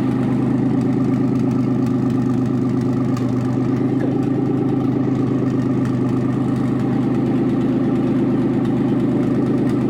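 Nissan 300ZX's freshly installed VG30ET turbocharged V6 idling steadily at an even pitch, still cold after its first start and warming up.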